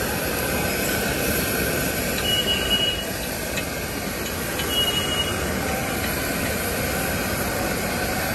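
Steady sizzle of onions and green chillies frying in oil in a pan on a gas burner, over constant street noise. Two brief, faint high whines sound about two and five seconds in.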